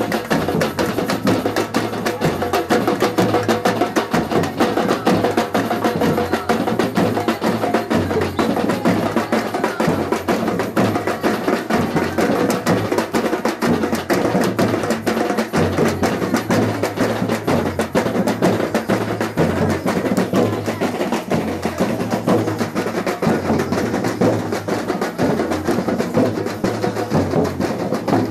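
Batucada samba percussion ensemble playing a continuous groove. Deep bass drums beat a repeating low pattern under dense, fast strokes from snare and small hand percussion.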